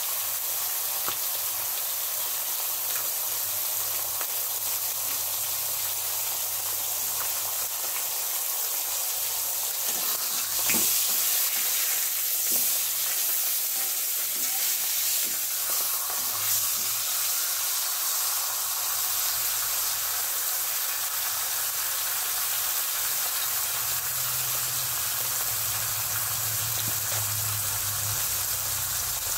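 Catla fish head pieces sizzling steadily as they shallow-fry in hot oil in a kadai. Around the middle, a spatula scrapes and knocks against the pan as it turns them.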